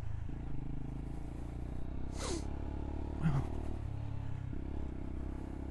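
Motorcycle engine running steadily at low speed as the bike is ridden, its note shifting slightly twice. Two brief sounds sweep sharply down in pitch about two and three seconds in.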